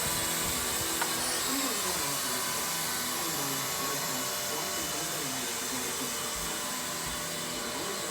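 Small remote-control helicopter drone's electric motor and rotor blades whirring steadily, a continuous motor whine with a rushing air noise.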